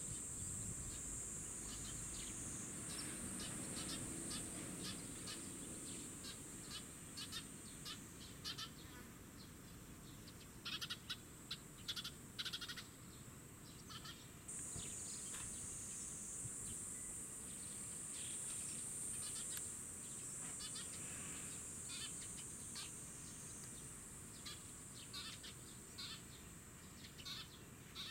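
Fledgling Eurasian tree sparrow giving many short, high chirping begging calls, in a loud cluster about eleven to twelve seconds in. A steady high-pitched insect buzz runs under them, fading for a stretch in the middle and coming back strongly about halfway through.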